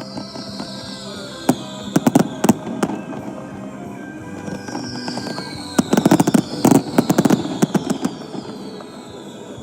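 Aerial fireworks going off in two rapid volleys of sharp bangs and cracks, the first about two seconds in and the second, denser one from about six to eight seconds in.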